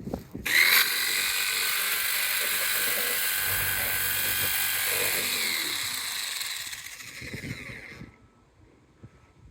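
Electric jigsaw cutting into the van's roof, trimming a corner of the vent opening. It starts about half a second in, runs steadily, eases off after about six seconds and stops about eight seconds in.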